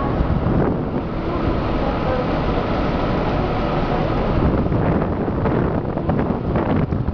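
Wind buffeting the microphone aboard a moving river motor ship, over the steady rush of the boat under way and water along its hull.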